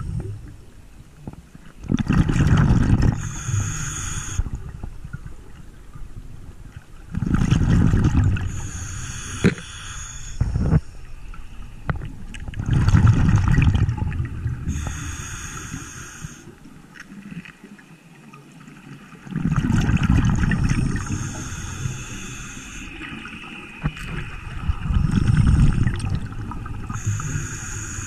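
A scuba diver breathing through a regulator underwater: a rumbling gurgle of exhaled bubbles, then the hiss of the demand valve on the next breath, about every five to six seconds, five breaths in all.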